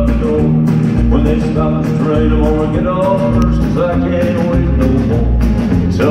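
Live country band playing: acoustic rhythm guitar, electric lead guitar, electric bass and drums, with the bass and kick drum keeping a steady beat.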